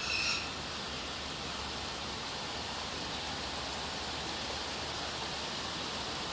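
Steady hiss of heavy rain, with a short, high bird call right at the start.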